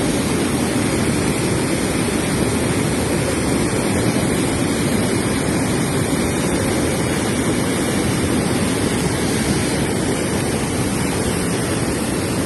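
Steady rush of a river running high and fast after heavy rain: an even, unbroken roar of water.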